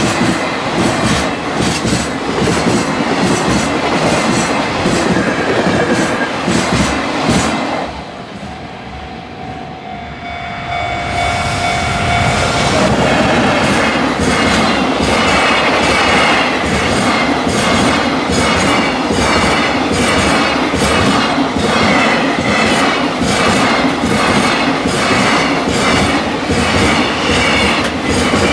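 Fast freight train of container wagons passing close by, the wheels clattering over the rail joints in a quick, steady rhythm. About eight seconds in, the clatter drops away for some three seconds, then the next freight train's wagons clatter past just as loudly.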